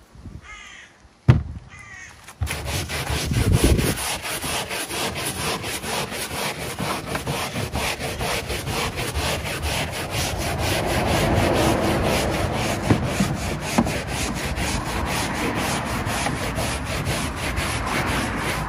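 Stiff hand brush scrubbing detergent into a car's interior carpet in rapid, even back-and-forth strokes, starting about two and a half seconds in. Before the scrubbing a bird calls twice and there is one sharp knock.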